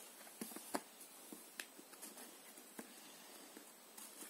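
Faint, scattered taps and scrapes of a cardboard toy screwdriver against the cardboard screw pieces of a children's activity book.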